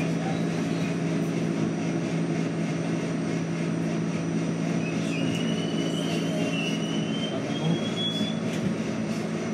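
Riding inside a Westinghouse-Amrail R68 subway car as it runs through a station: a steady rumble of the train with a low, even hum. Over the middle few seconds a thin high whine glides slightly upward.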